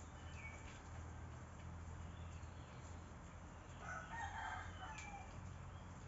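A rooster crows once, about four seconds in, for about a second, over a steady low hum. A few short high chirps come before and after it.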